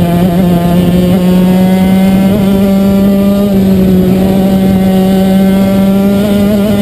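Racing kart's two-stroke engine at high revs, heard from on board, its note holding high and climbing slowly as the kart accelerates through the bends.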